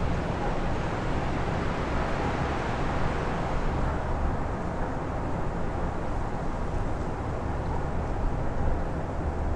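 Strong wind blowing as a steady rushing noise with a low rumble; its higher hiss eases off about four seconds in.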